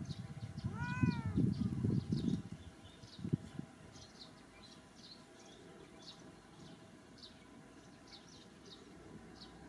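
Baby macaque eating watermelon: wet, crackly chewing and rustling for the first couple of seconds, then a single knock a little after three seconds. A short squeak that rises and falls comes about a second in. Quick high chirps repeat throughout.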